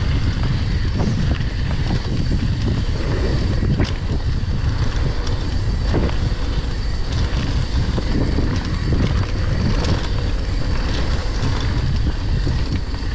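Mountain bike descending fast on a dirt trail: tyres rumbling over dirt and wind rushing over the microphone, with a few sharp knocks from the bike over bumps.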